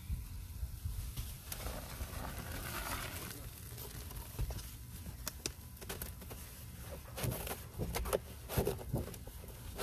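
Wet, foamy powder paste crackling and squelching around a sponge in the container, in scattered small clicks and wet pops that grow busier in the second half, over a steady low outdoor rumble.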